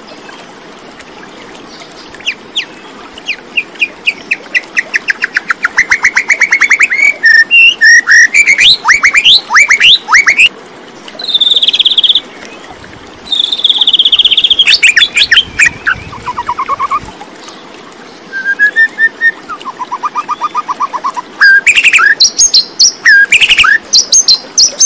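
A songbird singing close to the microphone: long, varied phrases of rapid trills and sweeping notes, with short pauses between phrases.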